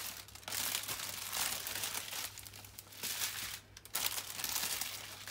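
Small plastic bags of diamond painting drills crinkling as they are handled and spread out on a table, in uneven bursts with a short pause a little before four seconds in.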